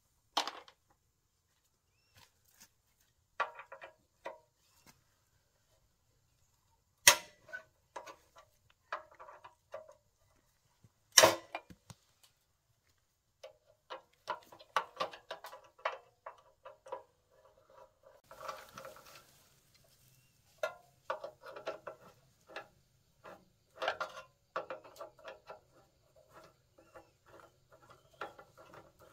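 Hand tools on the metal of a walk-behind tractor's engine: a few sharp, loud metallic knocks in the first dozen seconds, then a long run of quick clicks and clinks as a wrench works the bolts on the engine casing.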